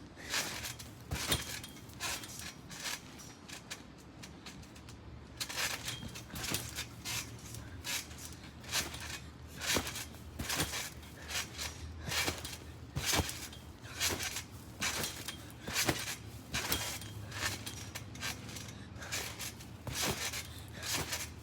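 A string of thuds and knocks, roughly one or two a second and unevenly spaced: feet landing backflip after backflip on the floor.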